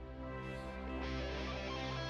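Background music: sustained instrumental tones, growing fuller about a second in.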